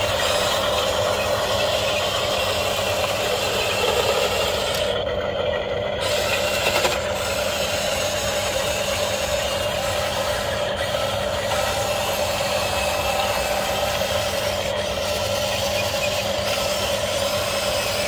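Huina remote-control toy excavator's electric motors and gearboxes running steadily as it works its arm and tracks, with a brief dip in the higher sound about five seconds in.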